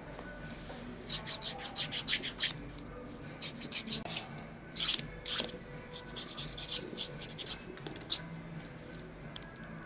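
Hand nail file rasping across fingernails in quick strokes, about six a second, in several short runs with pauses between. It is filing down the old dark nail polish. Only a few faint strokes come in the last two seconds.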